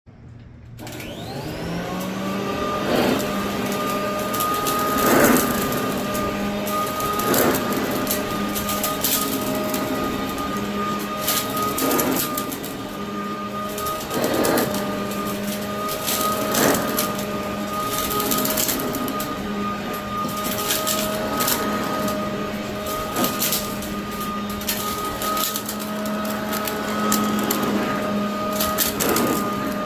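Hoover Decade 80 upright vacuum cleaner switched on, its motor whining up to speed within the first couple of seconds and then running steadily. Short scuffing noises recur every couple of seconds over the drone, and more often near the end.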